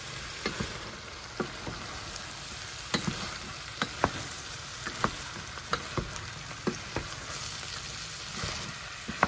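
Diced potatoes, peas, carrots and meat frying in butter and pepper paste in a stainless steel pot, a steady sizzle, while a wooden spoon stirs them and knocks against the pot about once a second.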